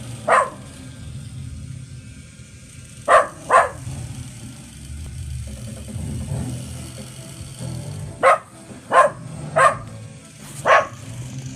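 A dog barking in short single barks: one near the start, two close together about three seconds in, then four more spaced well under a second apart from about eight seconds in.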